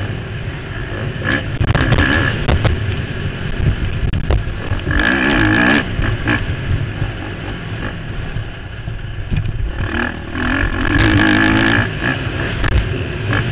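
Motocross bike engine running at race pace, heard from the rider's helmet. The engine swells to a high, hard rev twice, about five seconds in and again near the end, and drops back between.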